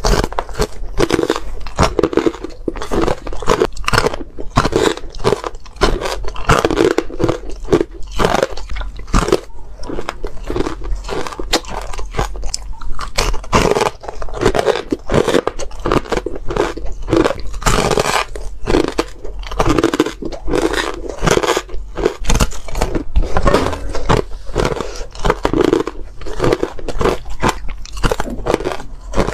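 Close-miked ice being bitten and chewed: a dense, irregular run of crisp crunches, squeaky and crunchy, with no let-up.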